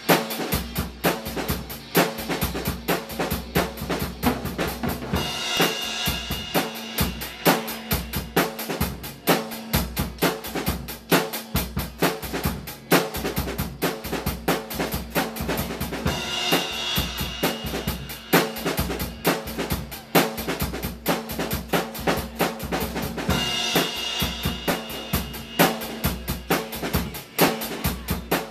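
Drum kit played in a fast, continuous groove of rapid bass drum and snare strokes, with brighter cymbal washes breaking in three times.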